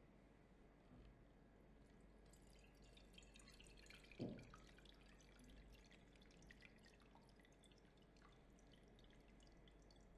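Faint pouring of thick sauce from a cast iron skillet through a fine mesh sieve: a soft patter of drips and splashes that begins a couple of seconds in and runs on. There is a single low thump about four seconds in.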